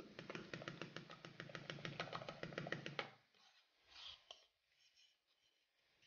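A metal fork whisking oil and flour in a bowl: fast, even clicks of the fork against the bowl, about ten a second, that stop about three seconds in, followed by a few faint taps.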